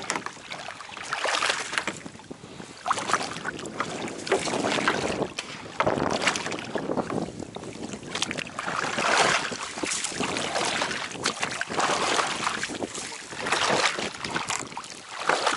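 Wet gillnet being hauled by hand over the side of a small boat, with water splashing and dripping off the mesh in uneven swells.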